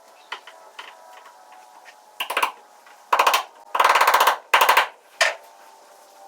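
Power tool run in about five short trigger bursts with a buzzing, rattling whir; the longest lasts about two-thirds of a second, and faint knocks and clicks come before and after.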